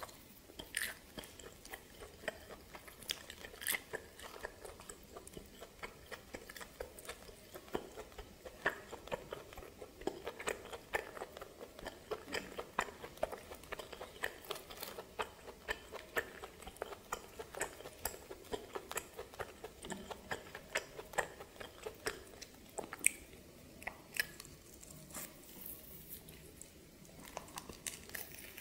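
A person biting and chewing steamed snake, with many short crunchy clicks.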